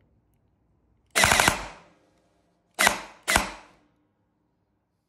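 Gel blaster gearbox with an Eshooter Kestrel V3 Basic trigger unit cycling under motor power: a short full-auto burst of under a second, then two single semi-auto cycles about half a second apart, testing the switched semi and auto settings.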